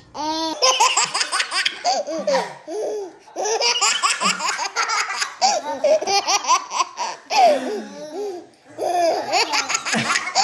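Babies laughing hard in repeated bursts of high-pitched laughter.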